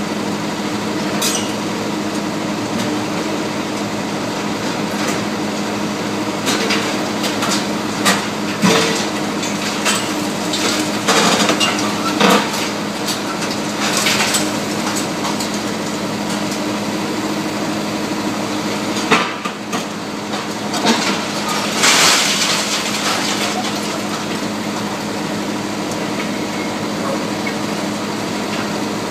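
Long-reach demolition excavators running with a steady engine hum while their crusher jaws break up a building's concrete facade. Rubble and debris clatter and crash down in spells, loudest about twelve seconds in and again about twenty-two seconds in.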